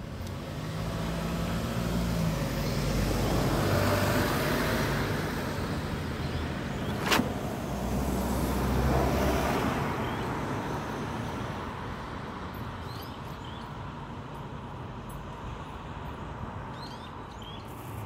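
Road traffic: vehicles passing by, the sound of tyres and engines swelling and fading twice, with a single sharp click about seven seconds in.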